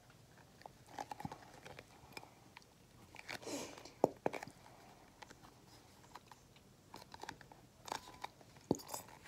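Plastic glue bottle being squeezed and handled to force out the last of the glue, with scattered crackles and sharp clicks and a few short bursts of noise.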